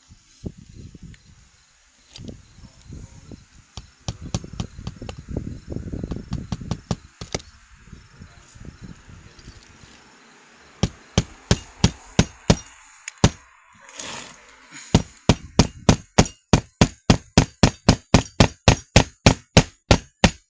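Hand hammer striking roofing nails into asphalt shingles: scattered blows about halfway through, then a steady run of about three sharp strikes a second. It follows a stretch of low rustling and scraping as the shingle is handled.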